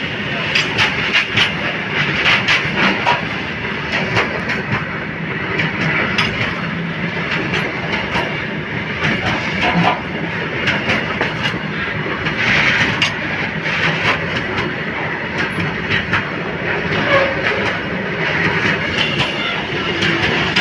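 Freight train wagons rolling past close by, their steel wheels clattering over the rail joints in a steady stream of clicks over a continuous rumble.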